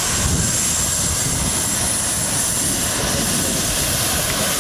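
Model jet turbine engines of a large RC Concorde running while it taxis. A steady rush with a thin high whine.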